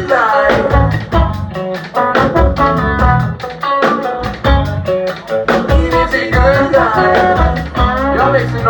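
Live band playing a song: a singer's voice over guitar and a drum kit keeping a steady beat.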